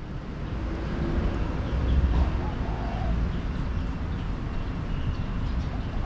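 Steady city traffic noise with a heavy low rumble, swelling over the first couple of seconds. A few faint high bird chirps come in the second half.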